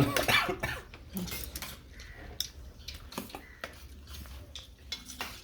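Scattered clinks and taps of tableware on plates during a meal, with a brief voice at the start.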